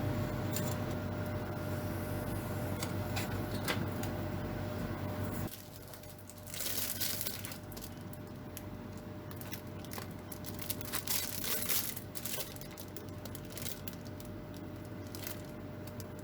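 Rustling and crinkling handling noises with short tearing-like bursts, as of sheet material or film being worked by hand. The background changes abruptly about five and a half seconds in.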